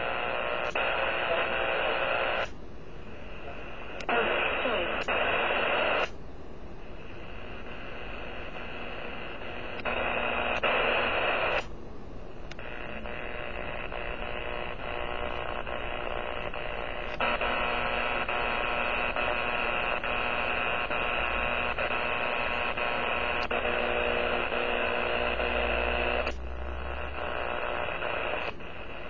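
Amateur radio receiver's audio full of power line noise: a dense, buzzy static with a steady hum in it, the interference that a faulty power line spreads across the ham bands. It jumps abruptly between louder and quieter levels several times.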